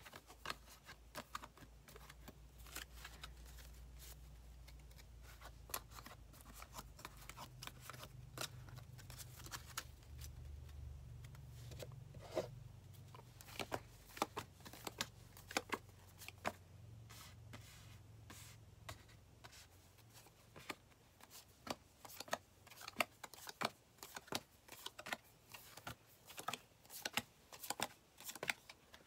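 Yu-Gi-Oh trading cards being handled and laid down one by one on a surface: a run of light, irregular taps and clicks, busier in the last third, over a low hum that fades out about two-thirds of the way through.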